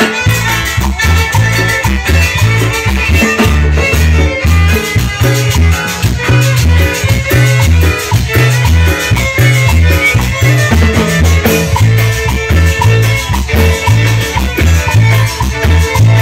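Live cumbia band playing: two violins over drum kit, congas and guitar, with a bouncing bass line that alternates between two low notes in a steady beat. The full band drops out briefly and comes back in right at the start.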